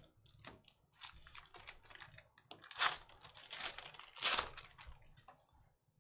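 Trading cards being handled: a quick run of clicks and short rustling scrapes as cards are slid and flipped against each other, the loudest three a little under a second apart, stopping about five seconds in.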